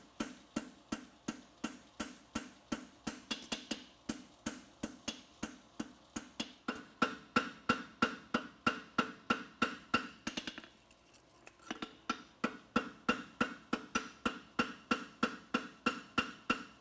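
A farrier's hammer strikes a red-hot steel bar horseshoe on the anvil in a steady run of blows, about three a second, each with a short metallic ring. The blows pause for about a second roughly two-thirds through, then carry on.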